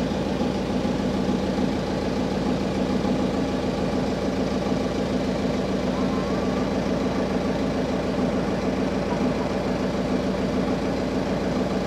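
A boat's onboard generator engine running steadily at constant speed, a fast, even low throb with no change in pitch.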